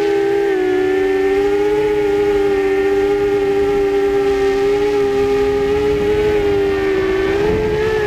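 Quadcopter's electric motors and propellers whining steadily, heard from the camera on the drone itself. The pitch holds nearly level with slight wavers and rises a little near the end, over a low rush of air.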